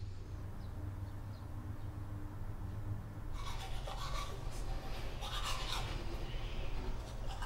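Teeth being brushed with a manual toothbrush: quick, rhythmic scrubbing strokes that start about three seconds in, over a low steady hum.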